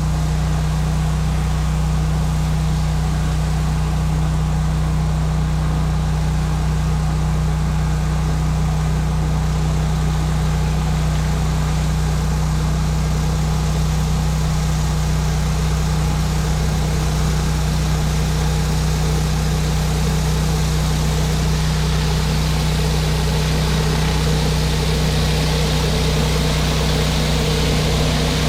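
Gas-engine pressure washer running at a steady speed, a constant low engine hum with a steady hiss of high-pressure water spray over it.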